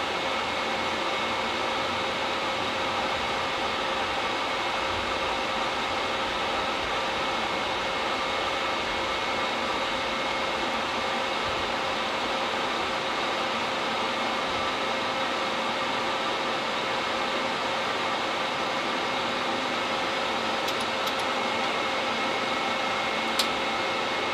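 Steady fan and air-conditioning hiss on an Airbus A350 flight deck, with a few faint steady tones in it. There is one small click near the end.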